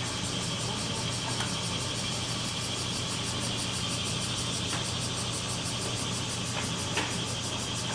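A steady low mechanical hum with hiss, with a few faint clicks.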